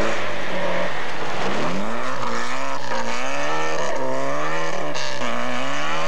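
Rally car engine revving hard, its pitch climbing sharply about a second and a half in, then rising and falling repeatedly as the throttle is worked, over a steady hiss.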